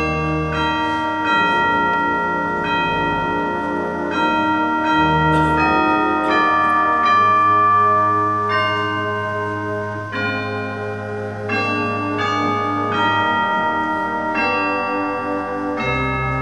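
Slow music on a church organ: held chords under a melody that changes note every second or so, the lower notes pulsing.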